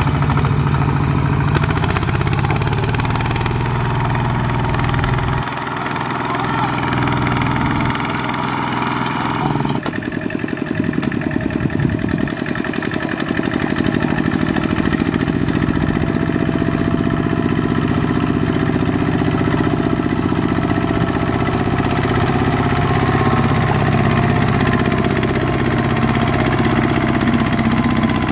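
Tractor engine running steadily throughout, its pitch shifting slightly. The sound changes abruptly about ten seconds in.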